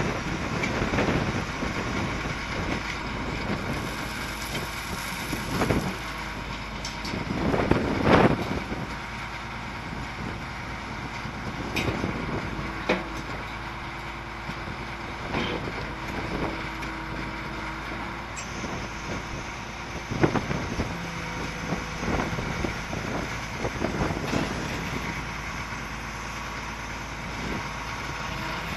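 Caterpillar 14G motor grader's six-cylinder diesel engine running steadily as the grader works a gravel pad, with several short louder rushes of noise over it, the biggest about eight seconds in.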